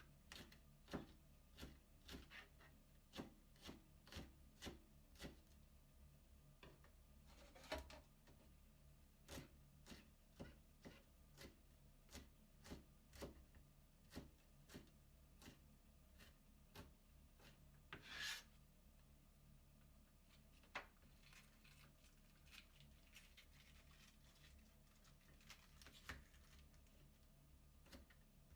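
Kitchen knife shredding cabbage into thin strips on a cutting board: quiet, crisp cuts about two a second. A short louder rustle of the leaves comes a little past halfway, and there is more rustling between the cuts after that.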